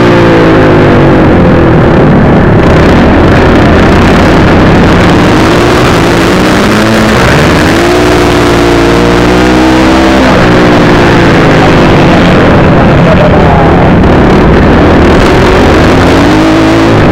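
A 250 cc motocross bike's engine, heard from the rider's own bike, revving up and easing off again and again as the throttle is worked around the dirt track, over a loud rushing noise.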